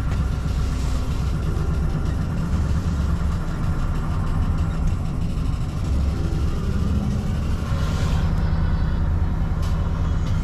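Truck engine running steadily, a continuous low hum with vehicle noise.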